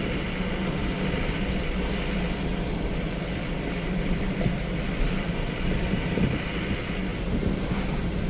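Steady engine hum and road noise from a moving vehicle.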